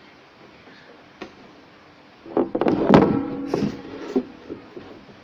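Handling noise as a cord is tied into a knot against a tabletop and rod: a faint click about a second in, then a close cluster of knocks and rubbing with a brief squeak, loudest about three seconds in.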